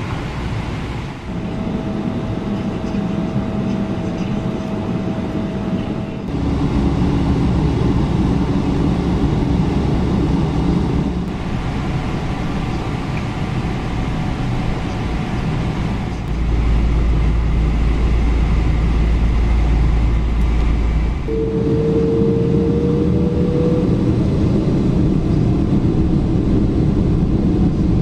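Boeing 777-200 jet engines at takeoff power and the rumble of the takeoff roll, heard inside the cabin. The engine tone changes abruptly several times, the low rumble is loudest from about 16 to 21 seconds in, and a slightly rising whine enters about 21 seconds in.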